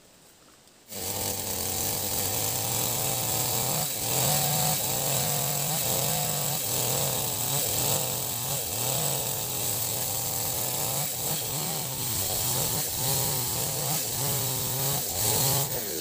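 Gasoline chainsaw running under load, ripping lengthwise along a felled log to mill it into boards, its engine pitch wavering slightly as it cuts. The sound comes in abruptly about a second in.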